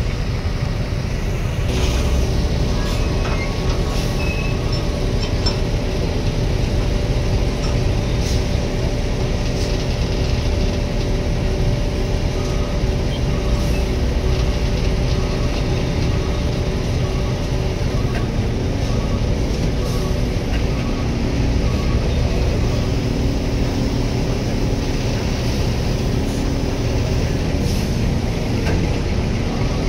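Heavy diesel engine running steadily at a constant speed, a continuous low drone, with a few faint clicks and knocks.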